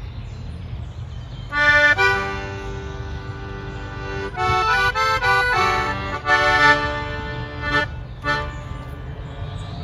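Piano accordion playing a tune: held chords with a melody moving above them, starting about one and a half seconds in. A steady low rumble runs underneath.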